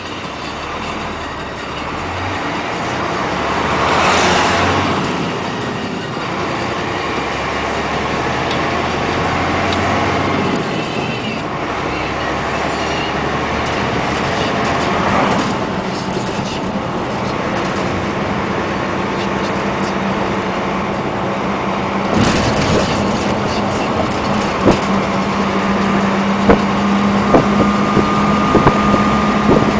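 Heavy trucks passing one after another, engine and tyre noise swelling and fading several times. From about halfway a steady engine drone runs under it, with a few sharp clicks near the end.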